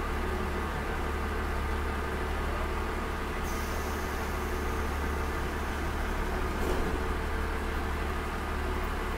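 KiHa 40 diesel railcar's Cummins DMF14HZ straight-six diesel engine idling steadily with a low hum. A high hiss starts about three and a half seconds in, and there is a brief knock near seven seconds.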